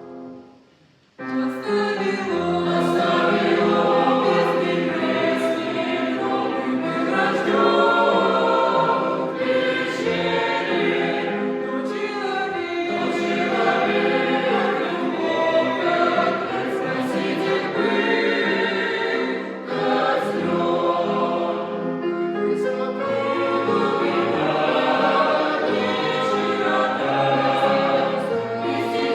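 A choir singing a song, coming in about a second in after a brief pause.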